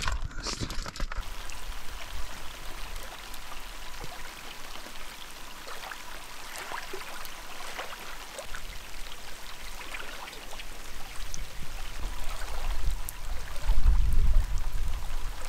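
Rain falling on a lake, a steady hiss dotted with small drop ticks, with wavelets lapping at the shore. A low rumble swells near the end and is the loudest part.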